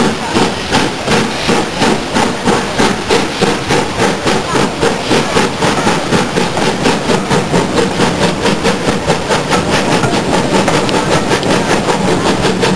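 Steam locomotive exhaust beats as the LMS Jubilee locomotive Leander pulls away with its train, the chuffs quickening steadily from about three a second to an almost continuous beat near the end.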